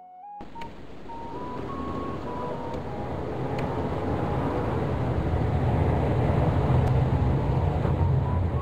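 Bus engine running as the bus drives, a steady low hum that grows louder over the seconds; a soft flute tune plays underneath.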